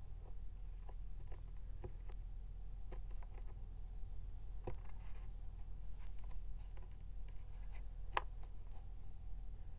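Scattered small clicks and scratches of a metal-tipped pokey tool (awl) prodding a hair elastic through a punched hole in a board journal cover, with one short squeak near the end, over a steady low hum.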